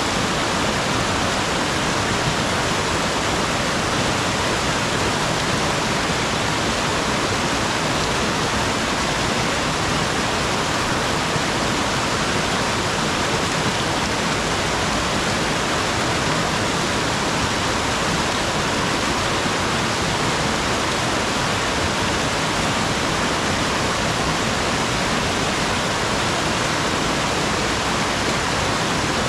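Steady, unbroken rush of fast-flowing water.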